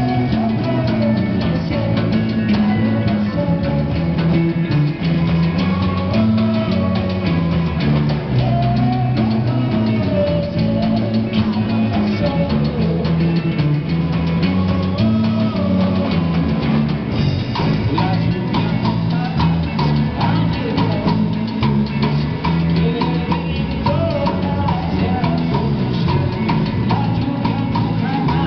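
Live rock band playing: drum kit and electric guitars, with a change in the playing about 17 seconds in.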